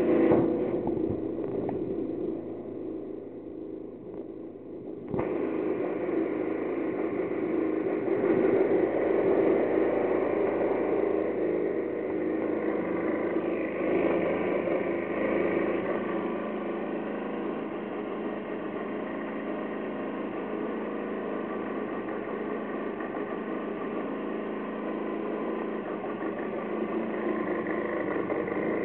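2003 Aprilia Scarabeo 50 DiTech's direct-injection two-stroke engine idling steadily. The sound dips, then jumps back louder about five seconds in.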